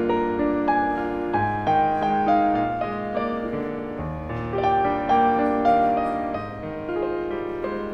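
Piano music, a melody over chords.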